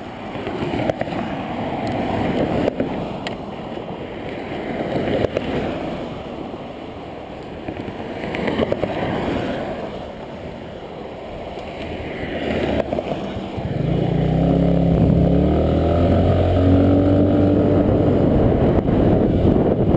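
Highway traffic swelling and fading as several vehicles pass, then about two-thirds of the way through a small scooter engine pulls away and runs on louder, its pitch rising in steps before levelling off.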